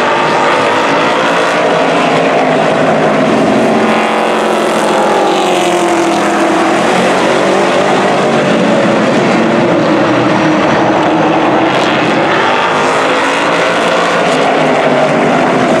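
A pack of Outlaw Late Model stock cars racing, their V8 engines running loud together, the pitch of the pack rising and falling as the cars speed up and slow through the turns.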